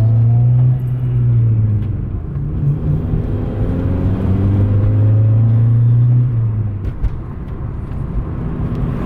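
Honda Civic wagon's four-cylinder engine pulling while the car is driven, with road noise. The engine note holds and climbs, falls away about six seconds in, then builds again.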